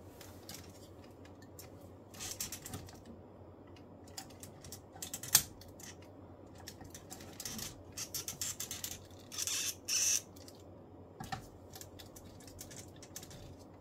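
Scattered clicks and short scrapes of a plastic transforming robot figure being handled, with a sharp click about five seconds in and a few brief rustling scrapes around the ten-second mark.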